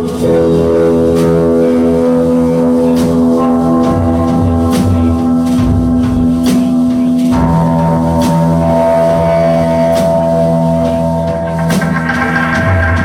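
Live rock band playing a droning, sustained chord over a steady drum beat, with sharp drum hits recurring at an even pace. The held chord shifts to new notes about seven seconds in.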